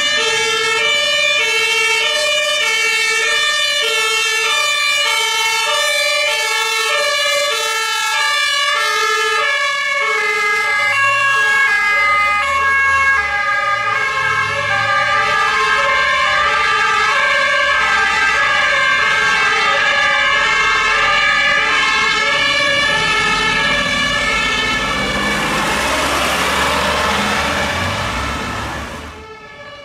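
German two-tone emergency vehicle sirens (Martinshorn) sounding continuously, switching back and forth between two pitches, with heavy diesel engines running beneath. A vehicle's engine swells near the end, and the sound stops abruptly just before the end.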